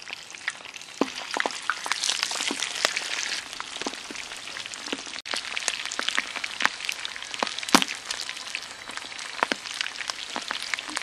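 Pig's feet deep-frying in hot oil at about 350 degrees: a dense sizzle that builds a second or two in, with frequent sharp pops and crackles of spattering oil.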